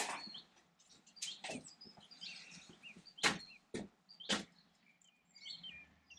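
About five short, sharp clicks and knocks spread over the few seconds. Small birds chirp and tweet throughout in the background.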